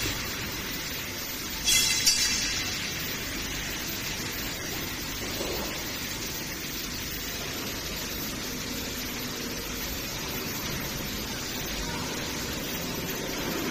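WDW-B20T electronic universal testing machine running a compression test, its drive giving a steady, even noise. A brief loud rush of hiss comes about two seconds in.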